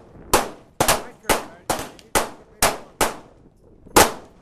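A string of gunshots on a shooting range, about nine sharp reports at uneven spacing, a shot roughly every half second, each with a short fading ring.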